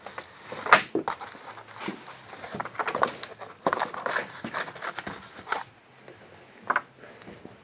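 Saw chain being handled and set into the anvil of a bench chain breaker: irregular small metal clicks, taps and rattles of the links, the loudest near the start.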